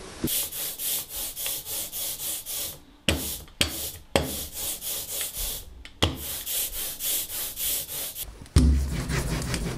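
A hand printer's ink roller rolled back and forth through tacky printing ink on an ink slab, a sticky rubbing hiss in strokes of about two to three a second, with a few knocks in the middle. The roller is being charged with ink before it goes onto the woodblock. A louder, deeper rolling sound sets in near the end.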